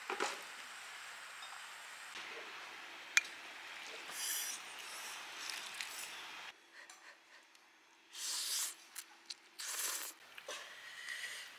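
Ramyeon noodles being slurped in short, loud bursts, with a few sharp clicks of utensils on a steel camping cup. For the first six seconds or so a steady hiss from the pot on the portable gas stove sits underneath.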